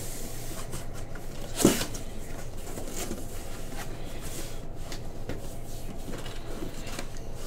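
Scattered light knocks and clicks of objects being handled, with one sharper knock about a second and a half in, over a steady low hum.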